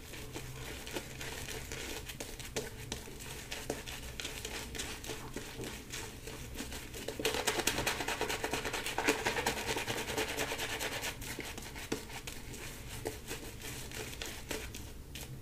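Boar-bristle shaving brush working shave soap lather on the face: a soft, crackly swishing, louder for a few seconds in the middle. The lather sounds a little airy and fizzy, a sign that it is still too dry and needs more water.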